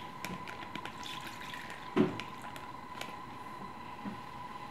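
Red wine poured from a glass measuring cup into a plastic zip-top bag, a trickling fill with small clicks and one louder knock about two seconds in.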